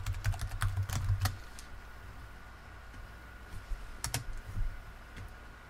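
Typing on a computer keyboard: a quick run of keystrokes over the first second or so, then a few more clicks about four seconds in.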